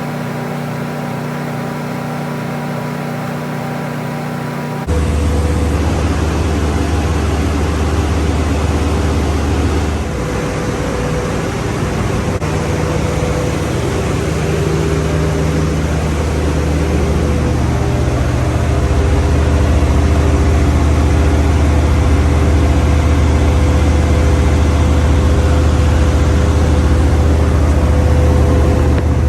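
1981 Corvette C3's 350 V8 engine running steadily, now getting power after a broken battery cable was welded back together. About five seconds in the sound changes abruptly, and it runs a little louder from about two-thirds of the way through.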